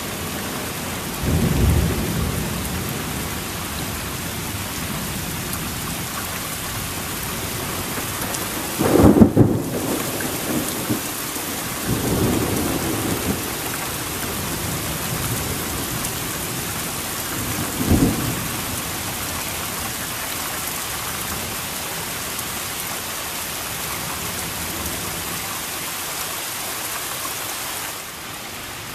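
Heavy thunderstorm rain hissing steadily, with several low thunder rumbles: one about a second and a half in, the loudest about 9 s in, another around 12 s, and a short sharp clap about 18 s in.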